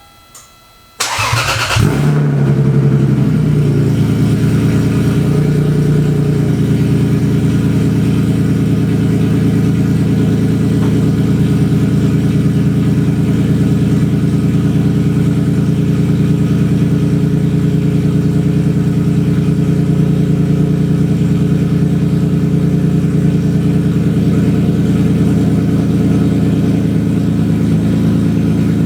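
Lexus IS300's 2JZ-GE inline-six starting about a second in, then running at a steady idle. The idle settles slightly lower over the first few seconds. It is loud through aftermarket headers and mid-pipe.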